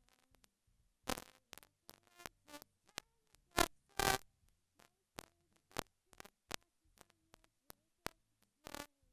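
A girl singing into a handheld microphone, her voice coming through in short, broken-up fragments with gaps between them; the loudest bits come about three and a half and four seconds in and again near the end.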